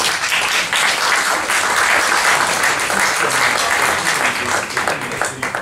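Small audience applauding, a steady round of hand-clapping that thins out near the end.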